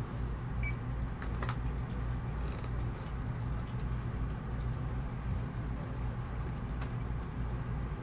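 Police dispatch room ambience: a steady low hum, with a brief faint beep and then a sharp click in the first two seconds, and a few faint ticks after.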